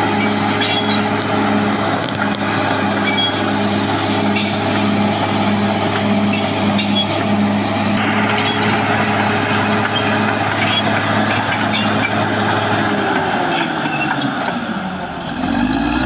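Caterpillar D6R XL bulldozer's diesel engine running steadily under load while it pushes soil. About two seconds before the end the engine note falls, then climbs again.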